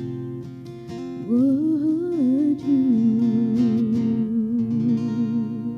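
Acoustic guitar chords ringing under a woman's singing voice. The voice comes in about a second in, slides and wavers, then holds one long note with vibrato: the closing note of the song.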